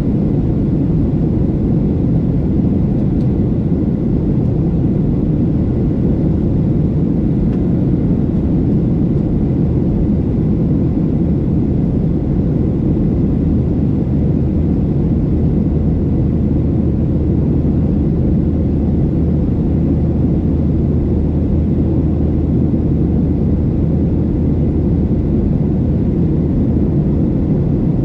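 Steady cabin noise of a Boeing 737-700 in flight: the CFM56 engines and rushing air make an even low rumble that does not change.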